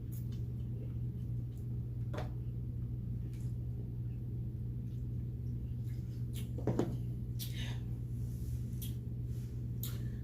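Small eating and food-handling noises, short scattered clicks and rustles, over a steady low hum, with one louder knock about six and a half seconds in.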